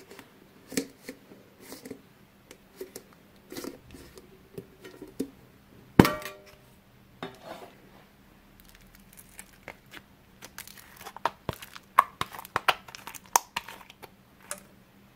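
A round metal tin's lid is worked loose with small clicks and scrapes, then comes off with a sharp metallic clink that rings briefly about six seconds in. Near the end, a finger pressing into thick slime in the tin makes a quick run of sticky crackles and pops.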